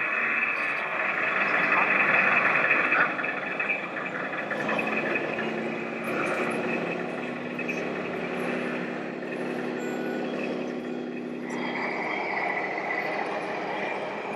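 Radio-controlled model trucks running steadily, with the hum of their engine-sound modules and electric drives. The sound changes about 11 seconds in, when a higher band of sound comes back in.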